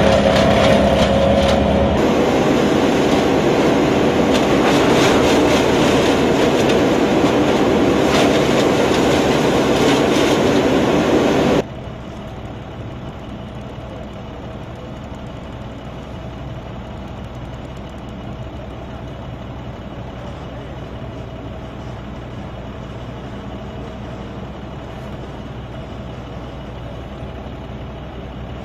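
Steady vehicle running noise, loud at first, then cutting abruptly to a quieter steady hum about twelve seconds in.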